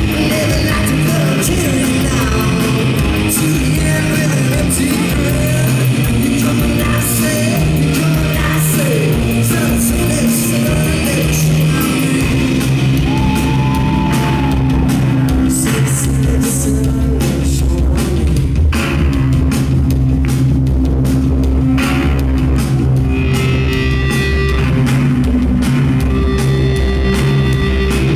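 Live rock band playing loudly: electric guitar over held bass notes and drums, with a singing voice.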